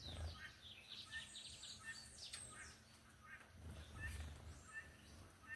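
Small wild birds chirping, many short falling chirps overlapping one another.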